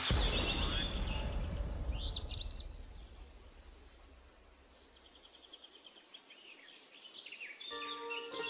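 Small birds chirping, with short rising calls and a high trill about three seconds in. A low rushing noise under them cuts off about four seconds in, and music comes in near the end.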